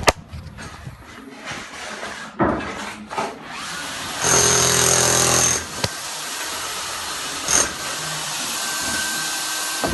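Construction jobsite noise: scattered knocks and bangs, then a power tool running in one burst of about a second and a half near the middle, followed by a sharp click, a thump and a steady machine hum.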